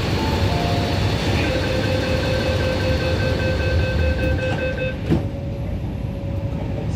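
MTR C-Train door-closing warning: the tail of a two-note chime, then rapid even beeping for about three and a half seconds while the doors close, ending with a single thump as they shut about five seconds in. A steady low rumble of the stationary train runs underneath.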